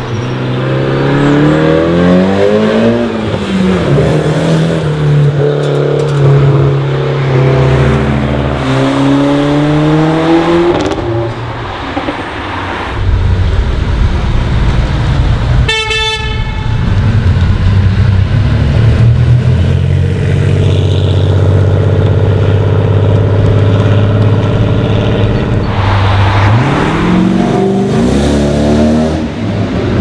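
Cars accelerating past one after another, engines revving up through the gears. A steady deep engine note fills the middle, and a short horn toot sounds about halfway through.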